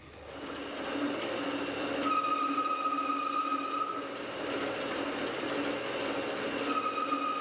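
Metal lathe spinning up and running with a steady hum. Twice a carbide insert tool cuts into the metal workpiece, bringing a high, steady ringing tone, the second cut starting near the end.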